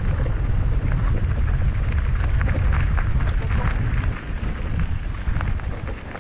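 Mountain bike riding over rough ground: a heavy rumble of wind on the microphone, with many small clicks and rattles from the bike and the trail surface.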